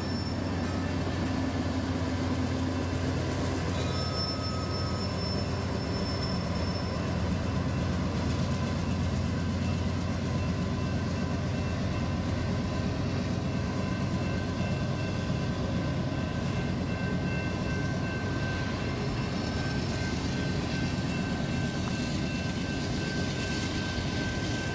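Diesel locomotives of a passing train running at a steady, even rumble, with a faint steady high tone joining about two-thirds of the way through.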